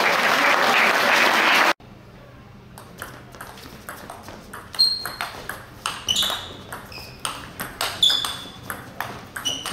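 Loud crowd noise cuts off abruptly under two seconds in. Then a table tennis rally follows: a quick, irregular run of sharp ball clicks off bats and table, with a few short high squeaks.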